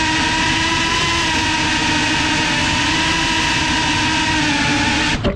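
FPV drone's electric motors and propellers whining steadily at a hover, heard from the camera on the drone. The whine cuts off suddenly near the end as the motors stop.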